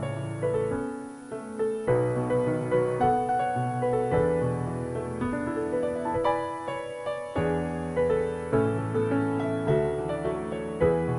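Piano music: a melody of single notes over held low chords.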